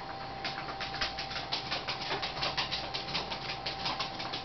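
A rapid, fairly even run of light ticks, about seven or eight a second, over a faint steady whine.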